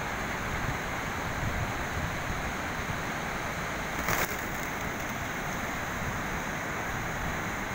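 Wind buffeting the phone's microphone over a steady outdoor hiss, with a brief burst of noise about four seconds in.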